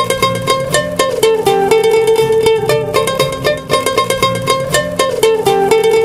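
Background music led by a plucked string instrument, picking a quick run of short notes throughout.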